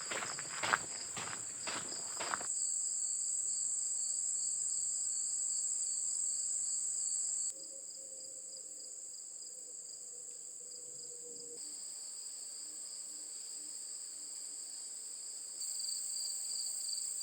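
Late-summer chorus of crickets and other singing insects: a steady high-pitched buzz over a pulsing trill. Footsteps sound for the first couple of seconds, then stop.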